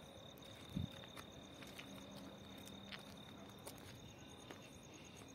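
Crickets chirping steadily in the night, with a few light clicks and one low thump about a second in.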